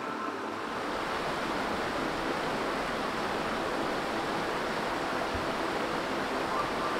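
Shallow river flowing over a stony bed: a steady sound of running water.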